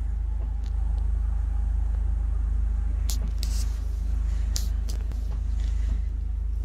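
Steady low rumble, with a few brief high-pitched bursts between about three and five seconds in.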